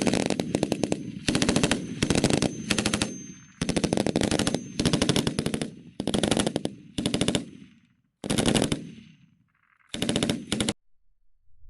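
Machine gun firing about nine short automatic bursts, each trailing off in a brief echo, with a longer gap before the last burst near the end.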